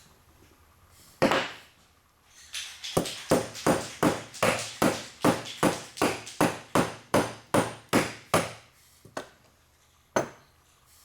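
Hammer blows: one strike about a second in, then a quick even run of about three blows a second for some six seconds, and two last single blows near the end.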